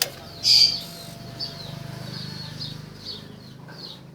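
A 160 cc motorcycle engine idling steadily and quietly, without any abnormal engine noise, while birds chirp repeatedly over it. A loud, short bird call stands out about half a second in.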